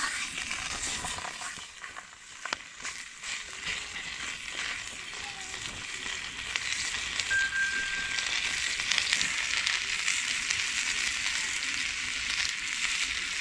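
Sirloin steak sizzling in a small pan set over a wood campfire, with scattered crackles. The sizzle grows louder about halfway through.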